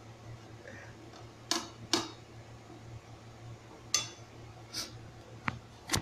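Several short clinks and knocks of a utensil against a frying pan and dishes, over a low steady hum.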